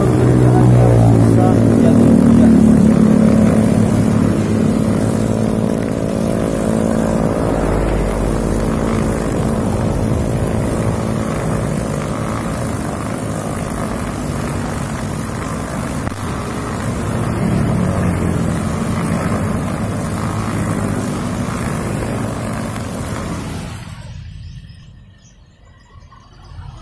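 Four-stroke Honda GX brush cutter running at high revs, its nylon line cutting grass; about 24 seconds in the engine is shut off and the sound dies away.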